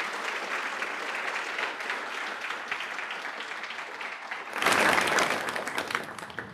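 Audience applauding, a dense patter of many hands clapping that swells louder for about a second near five seconds in, then tapers off near the end.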